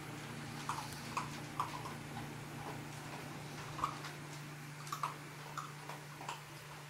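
Cats and dogs eating dry kibble from bowls: irregular small clicks and crunches, a few each second, over a steady low hum.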